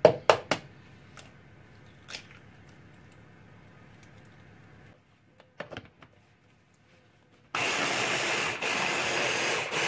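A couple of sharp knocks as an egg is cracked on the rim of a plastic chopper bowl, a few small clicks as the motor unit is set on the lid, then near the end a 600-watt hand blender's chopper attachment runs loud and steady in two short pulses, blending the egg into minced foie gras.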